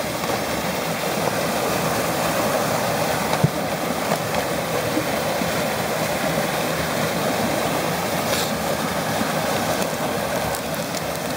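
A small waterfall rushing steadily, with a couple of brief faint clicks from the card box being handled.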